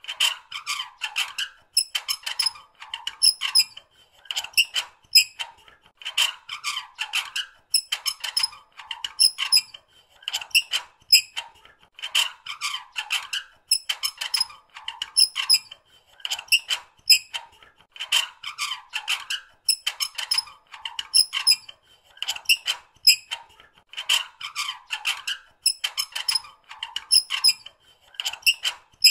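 Metal squeaking in short, high squeals that come in clusters, repeating about every two seconds.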